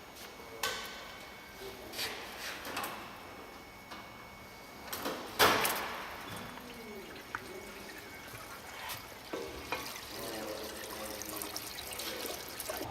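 Scattered clicks and knocks of work in a service bay, with one loud bang about five and a half seconds in.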